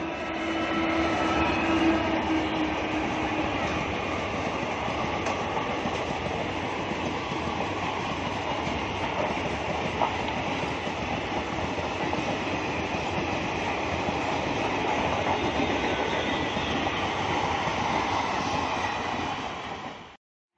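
Express passenger train, hauled by an electric locomotive, passing close at speed: a loud, steady rumble with wheels clattering over the rail joints. A steady hum runs through the first few seconds. The sound cuts off abruptly just before the end.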